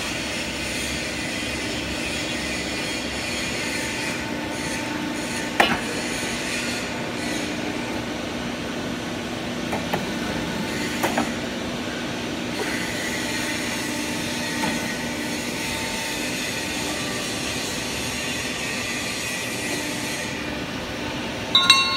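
Detsch W28K-89 hydraulic pipe bending machine running through a bend: a steady hum from its hydraulic unit, with a sharp metal knock about five and a half seconds in, a couple of clicks around eleven seconds and a short clatter of metal near the end.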